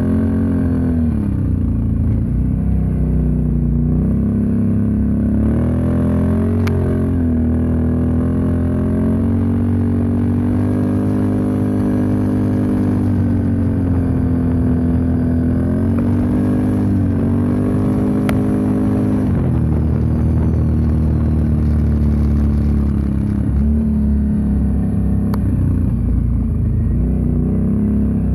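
Can-Am Outlander 650 XMR ATV's V-twin engine running through an MBRP aftermarket muffler under way, its pitch rising and falling with the throttle and dropping off sharply several times as the rider lets off and gets back on the gas.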